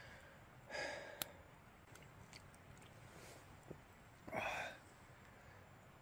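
A person's breathy sighs after a drink, twice: about a second in and again past four seconds, with a sharp click just after the first.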